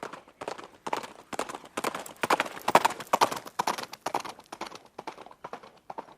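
Horse hooves clip-clopping: a quick, uneven run of hoof strikes that grows louder toward the middle and fades near the end.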